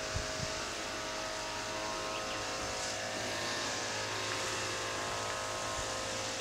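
Steady outdoor ambience: an even, low mechanical hum with a constant hiss over it, and a couple of soft footfalls near the start.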